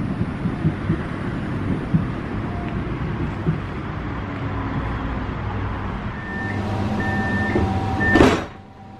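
Pesa Swing tram standing with a steady low hum, a few irregular soft knocks in the first half. From about six seconds in, the door warning sounds three short repeated beeps over a hum, and just after eight seconds there is a brief loud rush as the door shuts, after which it is suddenly quieter.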